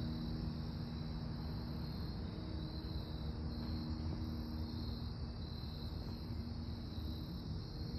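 Mooney M20J's four-cylinder Lycoming engine and propeller giving a distant, steady drone, a low hum with a few faint held tones that fade slightly near the end.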